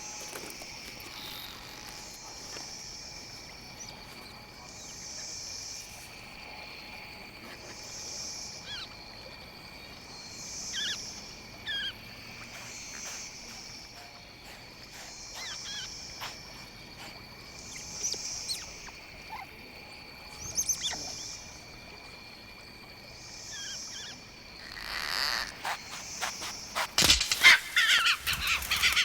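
Jungle ambience sound effect: a steady high insect drone with soft chirping pulses about every second and a half, and scattered short bird calls. A louder, harsher burst of calls comes in near the end.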